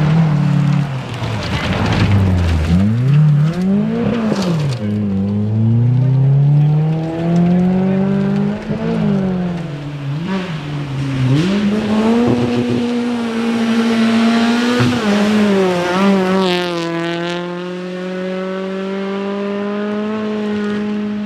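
Historic rally car engine revving hard, its pitch swooping down and up again and again as the car brakes, shifts and accelerates through the stage. Over the last few seconds it holds a long, steady, slowly rising pull in one gear.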